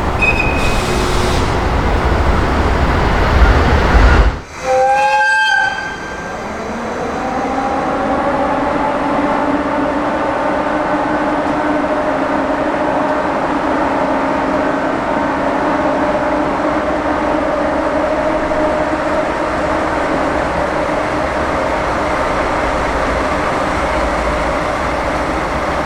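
A train rumbling heavily, then after a cut a short air whistle blast of about a second from a JR EF64 electric locomotive's AW-2 whistle. It is followed by the steady running sound of the passing train, with a humming tone over the rumble.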